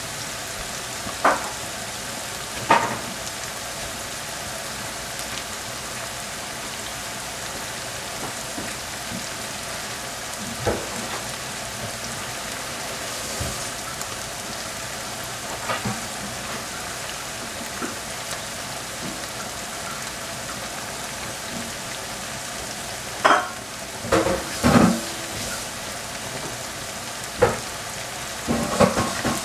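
Sliced red and white onions sizzling steadily in oil in a frying pan as they are slowly caramelized, with a few short, sharp clicks or knocks, most of them near the end.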